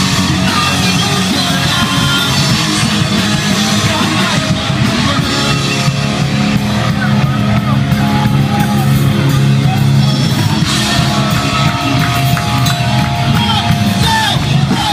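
Live hardcore punk band playing loud: distorted electric guitar, bass guitar and drum kit, with a vocalist yelling over them.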